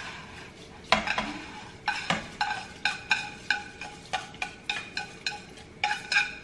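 A wooden spoon knocks and scrapes toasted rice out of a nonstick frying pan into a pot of chicken broth for congee. There is one sharp knock about a second in, then quick repeated knocks about three a second from about two seconds in, with the pan ringing briefly after each.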